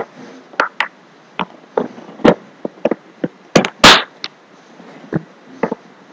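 A dozen or so irregular sharp clicks and knocks close to the microphone, with louder thumps right at the start and about four seconds in.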